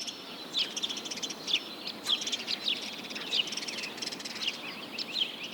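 Birds chirping: a stream of short, quick, high chirps over a faint steady hiss.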